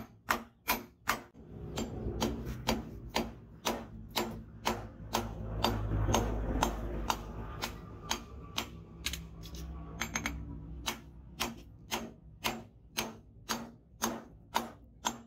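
Hand hammer striking a red-hot leaf-spring steel blade on a steel post anvil: sharp metal-on-metal blows, about three a second. A low rumble swells under the blows from the first couple of seconds, peaks near the middle and fades.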